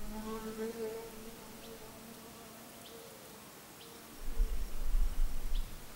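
A flying insect buzzing close by for the first second and a half, its pitch wavering, with brief high chirps every second or so. A low rumble rises for over a second near the end.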